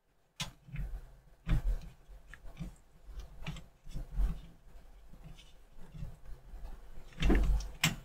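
Thin polypropylene filter sheet being bent and pushed by hand into a rack bay: irregular soft knocks, scrapes and creaks of plastic against the metal frame, with a longer, louder scrape near the end.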